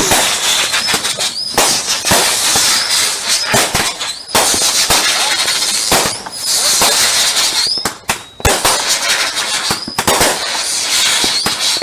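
Fireworks going off in quick succession: dense crackling and repeated bangs, with short rising whistles several times.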